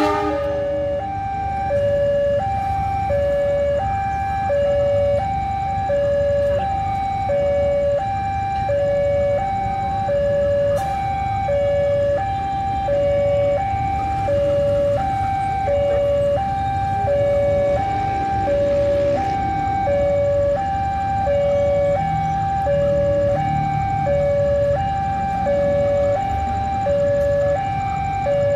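A two-tone electronic warning alarm sounds steadily, switching between a higher and a lower tone about every two-thirds of a second, over a low rumble.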